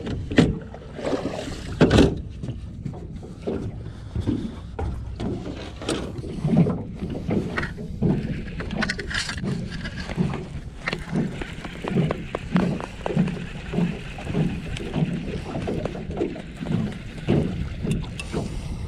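Small waves slapping against the boat's hull in soft, even thumps about every 0.7 s, with a couple of sharp knocks of handling in the first two seconds. A baitcasting reel is cranked in the second half while a fish splashes at the surface near the end.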